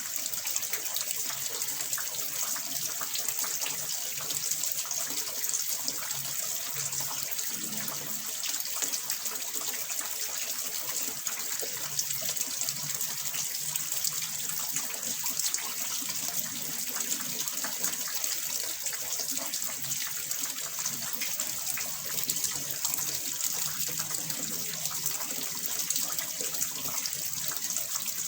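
Water pouring and splashing steadily into a small fish pond, a constant bright rushing hiss with fine trickling crackle.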